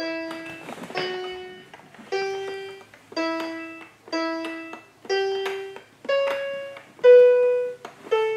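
Electronic toy speaker of a VTech Baby Amaze play set playing a slow, simple keyboard-like melody, about one note a second, each note fading away. The loudest note comes about seven seconds in.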